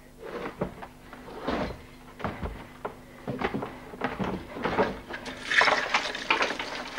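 Gold coins clinking and shifting in irregular bursts as a hand rummages through them in a wooden chest, loudest about five and a half seconds in.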